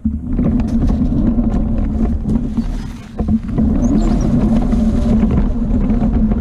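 ATV engine running steadily under throttle; it drops back briefly about three seconds in, then picks back up.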